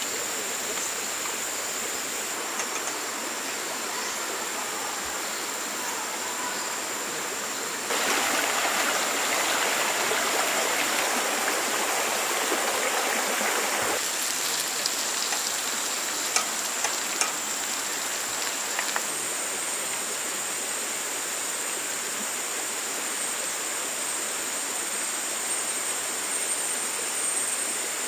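Steady rush of a flowing river, with a thin, steady high-pitched tone above it. The rushing swells louder for several seconds about a third of the way in, and a few light clicks follow.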